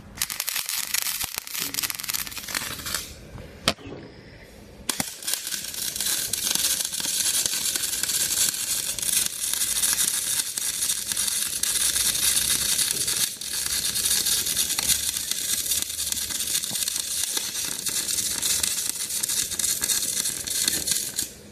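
Stick (arc) welding: the electrode's arc crackling and sizzling. It burns for about three seconds, breaks off with a single click in the gap, then is re-struck about five seconds in and burns steadily until it stops just before the end.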